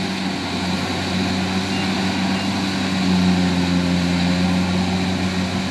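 Kubota DC70 Plus combine harvester's diesel engine running with a steady drone as the tracked machine harvests its way through soft, boggy rice-field mud.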